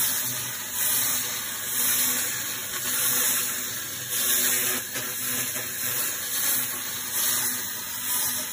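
A 2000 W handheld fiber laser ablating rust from a steel plate: a steady hissing crackle that swells and fades about once a second as the beam is swept back and forth.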